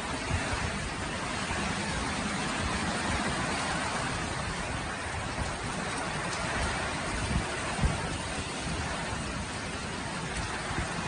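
Tropical cyclone downpour: heavy rain pouring steadily, with wind gusts buffeting the microphone in low rumbles, briefly near the start and again about eight seconds in.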